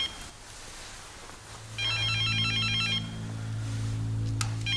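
Electronic telephone ringtone, a fast warbling trill, ringing in repeated bursts about two seconds apart, the last burst cut short near the end as the phone is answered. A low steady hum comes in underneath about a second and a half in.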